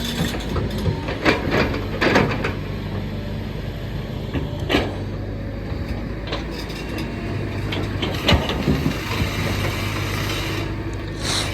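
Kobelco excavator running steadily, with sharp knocks and clatters about every few seconds as it works rock.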